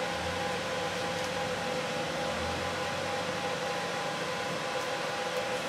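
Steady hum with two steady whining tones over a background hiss, unchanging throughout.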